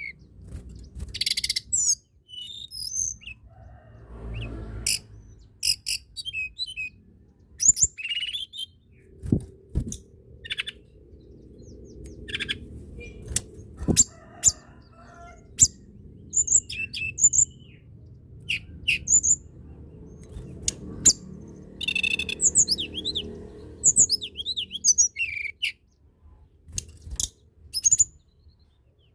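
Tledekan gunung, a small Indonesian songbird, singing: rapid bursts of high, sharp chirps and short trills, repeated with brief pauses between phrases.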